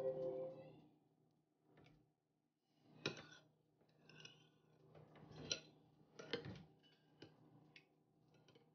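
A metal spoon stirring in a ceramic bowl of thick cocoa pudding, clinking faintly against the bowl about six times with quiet gaps between.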